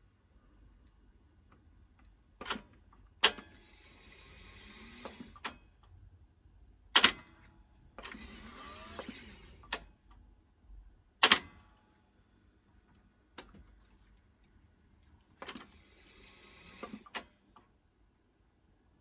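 Technics RS-1506U reel-to-reel tape deck's transport worked from its push buttons: sharp mechanical clicks and clunks, three of them followed by a short stretch of tape spooling with a hiss that then stops.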